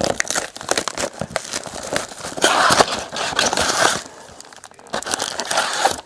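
Plastic wrapping on a box of trading cards being torn and crinkled by hand, in uneven crackling stretches that are loudest in the middle and near the end.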